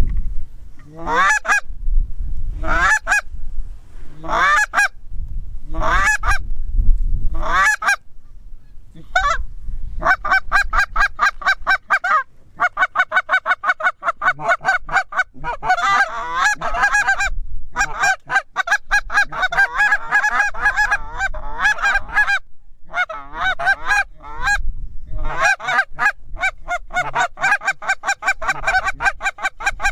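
Canada goose honking: about five separate rising honks roughly a second and a half apart, then from about ten seconds a fast, nearly continuous run of honks and clucks, broken by short pauses. A low rumble of wind on the microphone sits underneath, strongest in the first few seconds.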